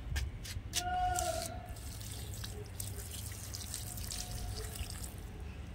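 Water poured from a plastic jug onto the soil of potted plants, trickling and dripping, with a low rumble of wind on the microphone.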